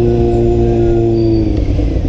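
Honda CB600F Hornet's inline-four engine running under a rider on the move, its note easing down slightly and dipping about one and a half seconds in, then picking up again near the end.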